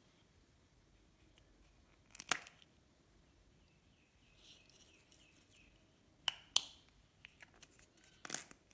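Slime and makeup being handled for mixing: a few sharp clicks and crackles, the loudest about two seconds in and a close pair past the six-second mark, with a stretch of soft crinkling between.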